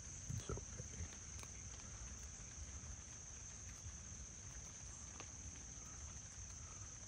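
A tabby cat eating dry kibble from a plastic tub, with a few faint crunching clicks, over a steady high-pitched background trill.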